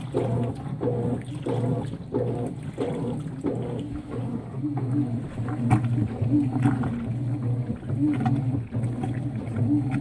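Top-load washing machine agitating a load of wet towels: a steady motor hum under rhythmic water sloshing, about two strokes a second at first, with the rhythm changing about four seconds in.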